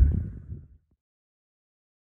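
Low outdoor background rumble fading out within the first second, then dead silence.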